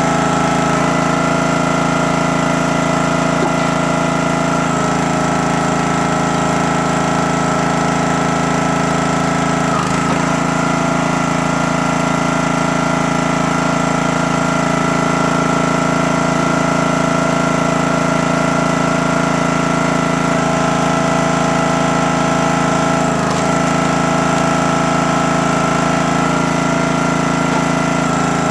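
Small gas engine of a CountyLine 28-ton log splitter running steadily, its tone shifting a few times as the hydraulic ram is worked. There is a brief knock about ten seconds in and another a little after twenty seconds.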